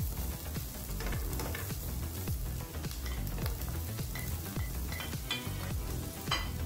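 Onion, ginger and green bell pepper sizzling steadily as they sauté in oil in a nonstick frying pan, stirred with a wooden spatula.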